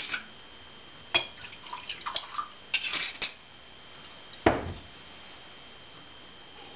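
Glass wine bottle and drinking glass clinking and knocking as wine is poured, then a heavier thud about four and a half seconds in as the bottle is set down on a wooden cutting board.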